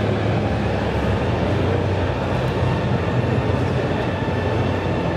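Steady low rumble and hum of a busy exhibition hall, unchanging throughout.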